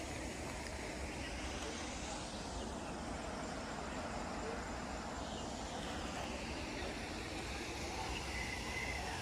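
Steady outdoor ambience with a low rumble and an even hiss. A bird chirps faintly a few times near the end.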